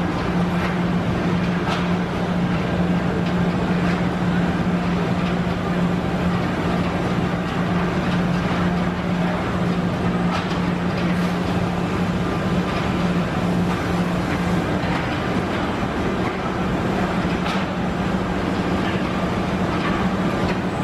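Woodworking machinery running with a steady hum over a constant wash of exhibition-hall noise, with scattered light clicks.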